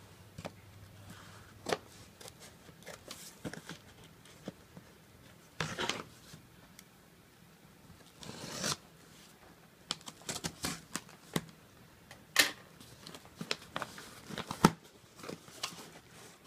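Scissors slitting the packing tape on a cardboard box, with longer scrapes of the blade along the tape and scattered clicks and rustles of cardboard as the flaps are opened; a sharp click near the end.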